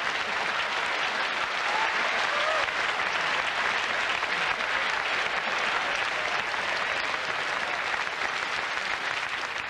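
Large audience applauding and laughing in a steady patter of many hands, which thins a little near the end.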